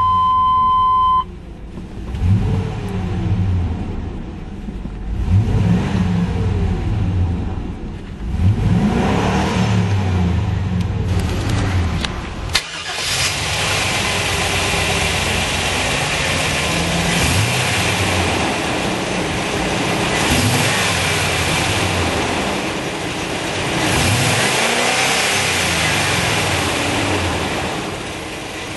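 Chevrolet Silverado 3500's 5.7-litre V8 revved several times, its pitch rising and falling, after a steady beep that cuts off about a second in. From about twelve seconds in, after a click, a steady rushing noise joins the engine, which keeps rising and falling in pitch.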